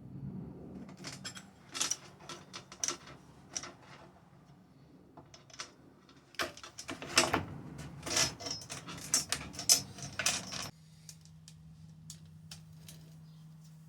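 Metal chainsaw parts and hand tools clicking and clattering as the McCulloch chainsaw's guide bar and chain are fitted, in two busy spells of irregular sharp clicks.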